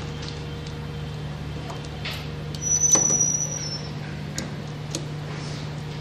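Screwdriver clicking and scraping on the terminal screws of a rotary changeover switch as wires are fastened, over a steady low hum. A louder scrape with a short high squeak comes about three seconds in.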